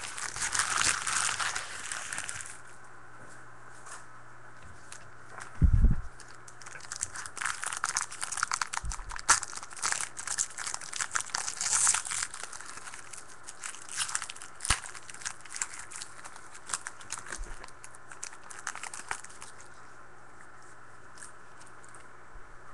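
Foil trading-card pack torn open and its wrapper crinkled by hand, in bursts of crackling, with one thump about six seconds in. The handling goes quieter near the end.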